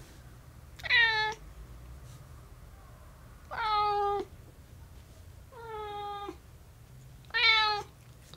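Light gray tabby cat meowing four times, about two seconds apart, each meow sliding up in pitch at its start.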